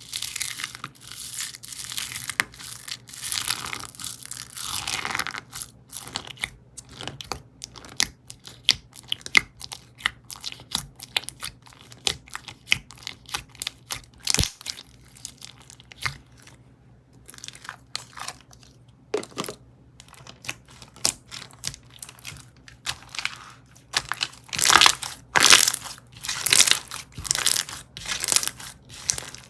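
Slime being squished and pressed by hand, giving crackling, crunching clicks and small pops. The crackling is densest in the first few seconds and again near the end, with scattered single clicks between.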